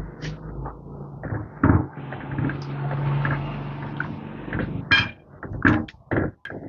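Onion, green chilli, garlic, salt and spice powder being mixed into coconut milk in a vessel: a stretch of wet stirring noise with a few sharp knocks against the vessel.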